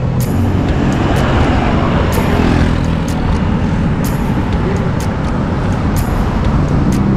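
Wind rushing over the microphone of a handlebar-mounted camera on a moving bicycle: a loud, steady low rumble, with scattered sharp clicks.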